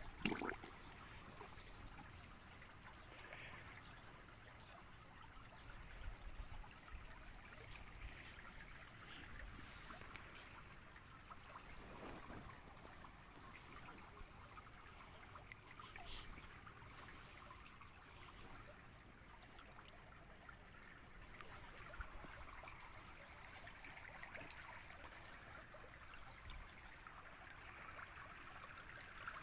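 Faint trickling and lapping of a shallow stony stream, with a brief splash of water right at the start and a few softer splashes later.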